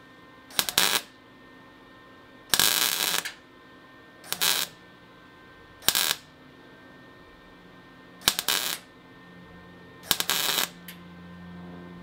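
Wire-feed (MIG) welder striking a series of short tack welds on sheet steel: six separate bursts of arc noise, each under a second, with pauses between. It is bridging a wide gap between the fender flare and the body, using a steel welding rod held in the gap as filler.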